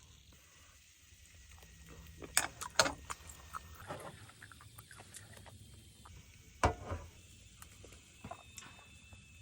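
Scattered clicks and knocks of small objects being handled, the loudest a few times about two and a half seconds in and again about two-thirds through, over a low steady hum.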